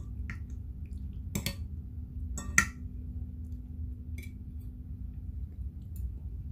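Metal fork clinking against a plate a few times, the loudest clink about two and a half seconds in, over a steady low hum.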